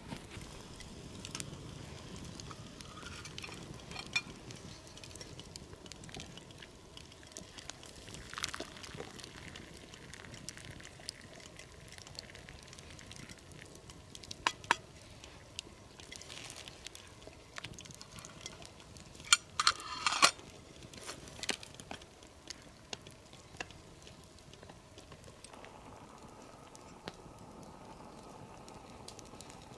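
Campfire crackling with scattered pops, and cooking noises as a wooden spoon stirs food in a small steel pot; a brief burst of clatter comes about twenty seconds in.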